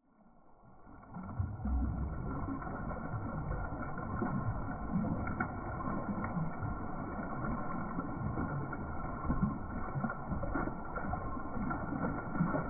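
Water sloshing and splashing in a stock tank as two wet goldendoodle puppies move about in it and shake off, fading in over the first second or so.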